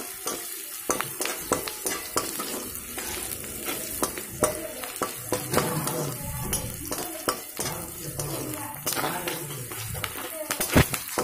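Sliced onions sizzling in hot oil in a kadhai, stirred with a metal spatula that scrapes and clicks against the pan over and over. One sharp knock of the spatula on the pan near the end.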